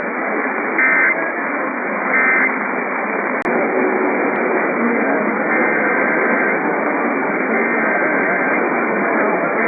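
Weather radio receiver playing heavy static hiss, with two short bursts of EAS SAME digital data tones about a second apart near the start. A sharp click comes about three and a half seconds in, and faint steady tones sound under the static in the second half.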